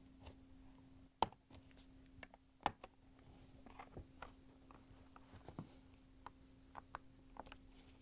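Plastic locking tabs on a dishwasher control panel's clear button cover clicking free as they are pried with a putty knife and small flathead screwdriver. Two sharp snaps a second and a half apart come first, then a run of lighter clicks and ticks of metal tools on plastic.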